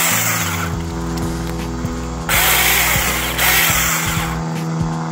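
Cordless electric mini chainsaw running with a steady motor whine, its chain cutting through palm fronds in two louder bursts: one in the first half-second and a longer one from about two to four seconds in.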